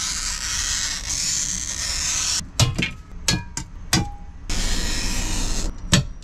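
Oil-fed glass cutter's hardened wheel scoring a sheet of glass along a straightedge: a steady scratchy hiss for about two and a half seconds. Then several sharp glass clinks with brief ringing as cut glass strips are snapped and knock together, with another short scratchy stretch and a last clink near the end.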